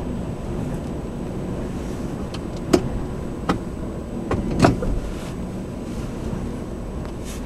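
Steady low rumble of a car heard from inside the cabin, with a few sharp knocks in the middle, about three and four and a half seconds in.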